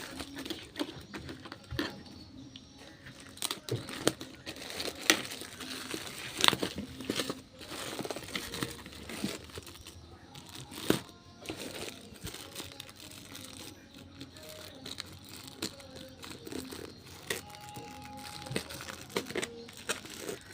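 Toy packaging being handled and opened: continuous crinkling and rustling with many sharp crackles and clicks scattered throughout.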